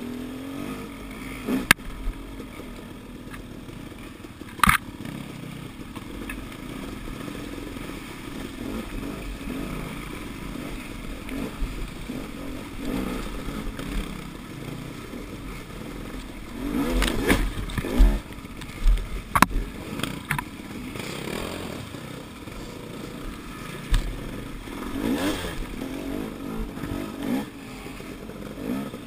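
Dirt bike engine being ridden off-road, its revs rising and falling with the throttle, with a louder run of hard revving a little past halfway. A few sharp knocks come from the bike over rough ground.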